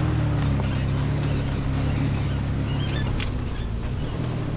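Vehicle engine running steadily as it drives slowly over a rough muddy dirt track, heard from inside the cab, with a few sharp clicks and knocks from the bumps.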